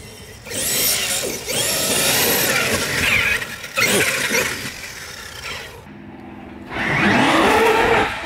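Traxxas X-Maxx electric RC monster truck running hard on grass: its brushless motor whine rises and falls with the throttle over drivetrain and tyre noise, with a quieter moment about six seconds in.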